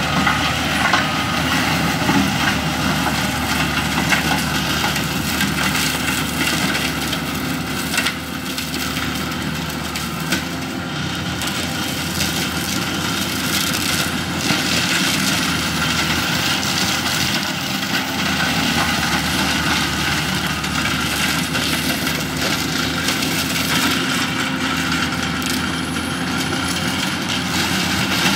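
Bobcat T870 compact track loader's diesel engine running steadily under load while its 50-inch two-speed forestry mulcher head, a spinning drum with knives, grinds through brush and small pines. Occasional sharp cracks of wood breaking come through the drone.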